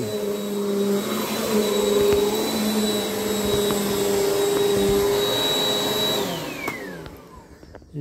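Upright vacuum cleaner running on carpet with a steady hum and a high whine. About six seconds in it is switched off and the motor winds down, its pitch falling away.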